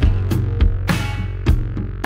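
Background music: guitar over a bass line, with drum hits.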